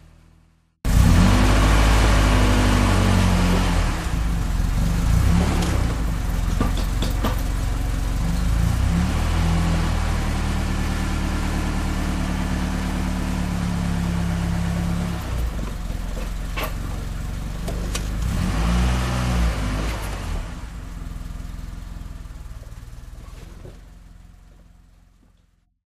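Car engine running, its pitch rising and falling several times as it is revved, then fading out near the end.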